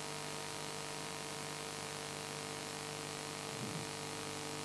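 Steady electrical hum with a constant hiss, with one brief soft sound about three and a half seconds in.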